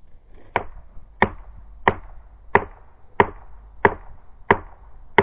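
Eight heavy, evenly spaced blows striking wood, about one every two-thirds of a second, each with a short ringing tail.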